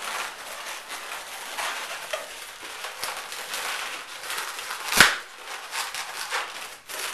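Latex modelling balloons, a gray 260 and a white 5-inch round, rubbing and squeaking against each other and against the hands as they are twisted together, a steady scratchy crackle. A single sharp snap about five seconds in.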